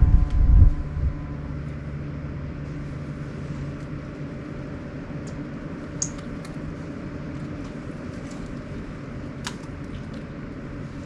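Sharp AY-J40S-W room air conditioner running: a steady low hum and airflow noise with a faint steady tone, and a few faint high ticks. The owner records this as an abnormal noise that repeated repairs have not cured. A louder low rumble dies away in the first second.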